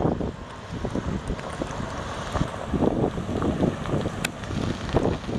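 Wind buffeting the microphone in irregular gusts, over the 7.5-litre V8 of a 1995 Ford Econoline E350 box truck running as the truck drives slowly forward.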